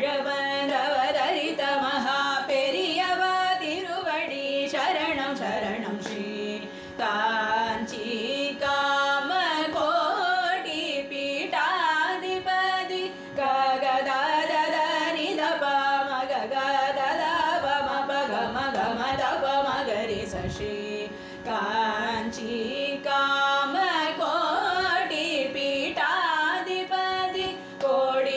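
Devotional bhajan singing, the voices moving through melodic phrases over a steady drone.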